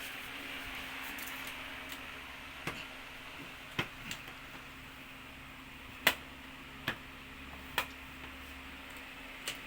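About seven short, sharp clicks and taps, spread unevenly, the loudest about six seconds in, from the plastic and metal parts of an LCD TV being handled and unclipped during disassembly. A low steady hiss runs underneath.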